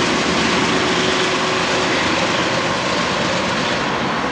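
Metro-North GE P32AC-DM diesel locomotive pulling away under power, a loud, steady engine drone that eases slightly toward the end.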